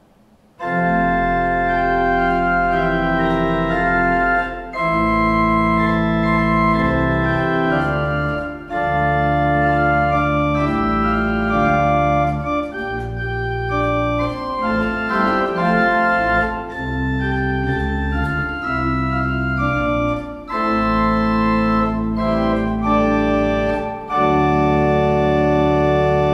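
Organ playing slow sustained chords over a deep held bass, in phrases with short breaks between them; it comes in about half a second in.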